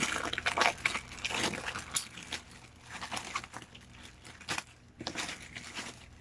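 A shipping parcel being handled and opened by hand: irregular crinkling and crackling of its packaging, busiest in the first two seconds and sparser after.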